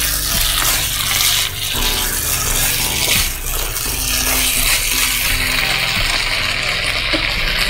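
Chicken and broccoli sizzling in a nonstick wok as a spatula stirs them, over background music.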